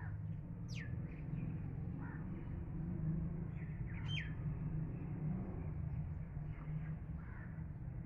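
Birds calling: scattered short calls, with two sharp downward-sweeping calls about a second in and about four seconds in. A steady low rumble runs underneath.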